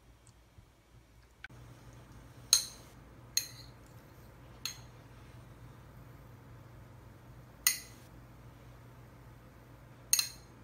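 Metal spoon clinking against a small bowl: five sharp, ringing clinks at uneven intervals. A low steady hum runs underneath from about a second and a half in.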